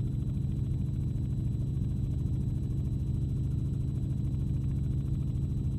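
Steady low drone of an aircraft's engine and rotor or propeller, heard from inside the cabin, with a fast, even pulsing and a faint thin high tone over it.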